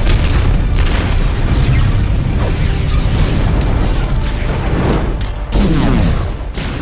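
Film sound effect of the giant arc reactor overloading and exploding: a loud, sustained rumbling blast, mixed with orchestral score. A second, harder blast comes about five and a half seconds in, followed by a few falling whistles.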